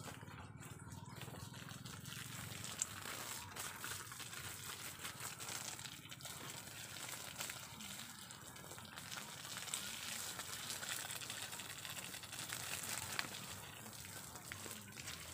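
Garden hose spraying water that splashes over a person's body and onto the ground, a steady hiss of spray and spatter.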